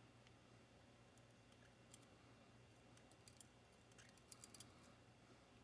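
Near silence with a few faint, sharp clicks of small metal lock parts being handled, a quick cluster of them near the end.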